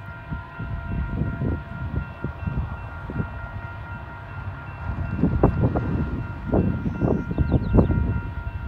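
Distant freight locomotive horn holding one long, steady chord of several notes, under gusts of wind buffeting the microphone that grow stronger in the second half.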